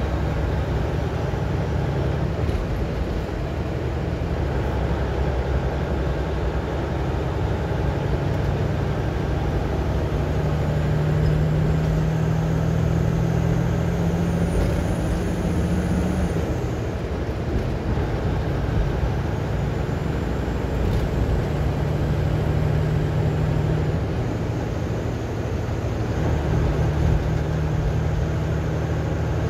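Steady engine drone and road noise heard inside a vehicle cruising at highway speed, with a low engine hum that shifts slightly in pitch now and then.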